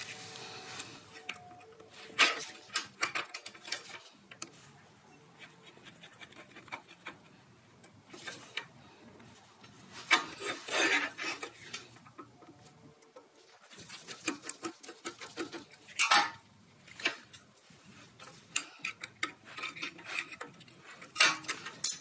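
Screwdriver and small steel parts of an old safety razor blade sharpener clicking and scraping as it is taken apart: scattered sharp metallic clicks and short scraping strokes, the longest about ten seconds in.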